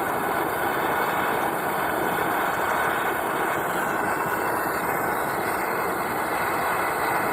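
Gas torch flame running steadily with an even rushing hiss while it heats a rusted lug nut, to expand the nut and break the rust bond.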